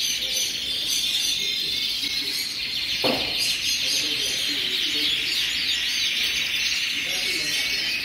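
Dense chorus of many red mosaic canaries singing at once, overlapping rapid trills and chirps, with one brief falling sound about three seconds in.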